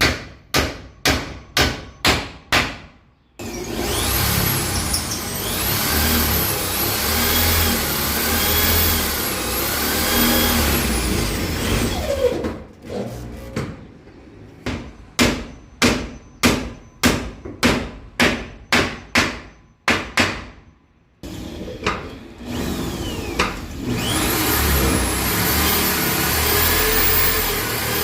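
A hammer drives nails with a few sharp strikes a couple of times a second. Then a Vonder electric drill runs for several seconds, its pitch rising and falling as it speeds up and slows. This repeats: another run of hammer blows, then the drill running again near the end.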